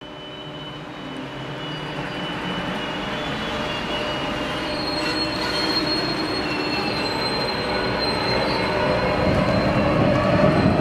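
A ČD Pendolino electric tilting trainset starting off and pulling past. Several steady high whining tones sit over a rumble that grows steadily louder, and a lower tone rises near the end as it speeds up.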